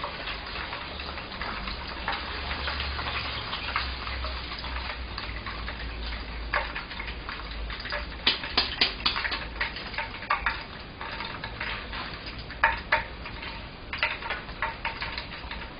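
Hot cooking oil sizzling and crackling in a frying pan as starch-coated tofu is deep-fried and lifted out, with sharper pops and clicks now and then.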